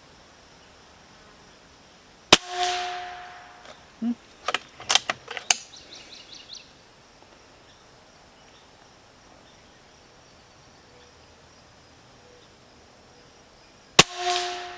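Two shots from a Benjamin Bulldog M257 PCP air rifle, about twelve seconds apart. Each is a sharp crack followed by a brief ringing tone. Between them comes a quick run of mechanical clicks as the action is cycled for the next slug.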